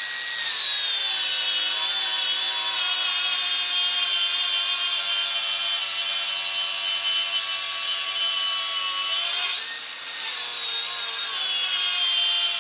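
Worx cordless angle grinder with a flap disc grinding the edge of a metal plate: a steady motor whine under a grinding hiss. The whine drops in pitch as the disc bites. About ten seconds in the disc eases off, so the whine rises and the hiss thins, then it bites again.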